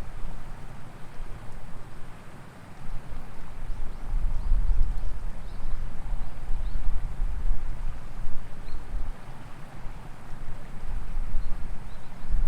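Outdoor ambience of wind rumbling and gusting against the microphone, swelling and easing over a few seconds, with a few faint high chirps scattered through it.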